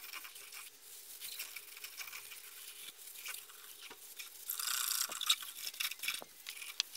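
Paper towel scrubbed and rubbed around the inside of an emptied diesel fuel filter housing: a dry, scratchy rustle with small ticks, louder for a moment about two-thirds of the way through. The wiping cleans debris out of the housing.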